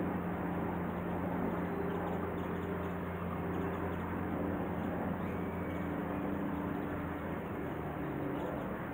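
Boat engine running at an even, low drone, its hum shifting slightly about halfway through.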